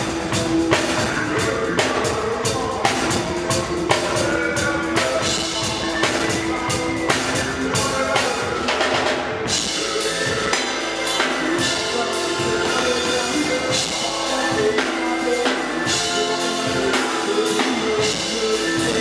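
Live band playing a steady beat on drum kit, with kick and snare over held keyboard chords and electric guitar. The low end thins out a little past halfway through.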